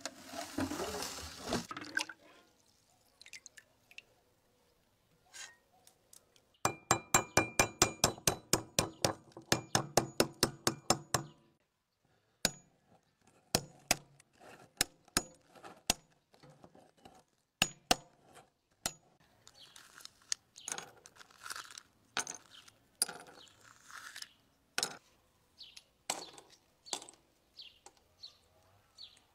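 Ostrich eggshell being tapped open: a quick run of about sixteen sharp, ringing taps, then slower single taps. Near the end come softer crackles as pieces of shell are broken away from the membrane.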